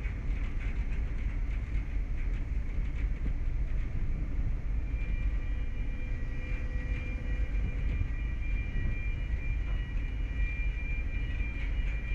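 Steady low rumble of a car ferry's engines heard from the open deck as the ship manoeuvres alongside the quay to berth. A faint, steady high whine joins about five seconds in.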